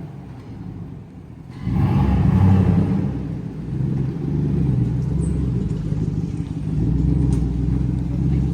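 Chevrolet Silverado's gasoline V8 heard through an open exhaust cutout. It is quieter for about a second and a half, then the engine picks up suddenly and runs loud and steady.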